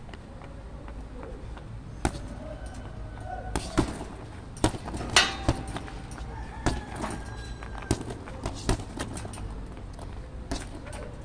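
Boxing gloves striking a hanging heavy punching bag in an irregular string of sharp slaps and thuds, some in quick pairs, the loudest about five seconds in.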